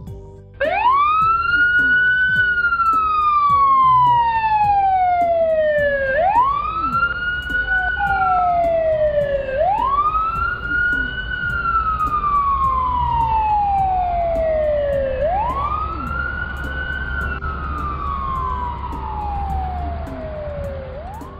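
Fire engine siren wailing: each wail climbs quickly in about a second, then slides slowly down over several seconds. Four full wails, with a fifth starting near the end.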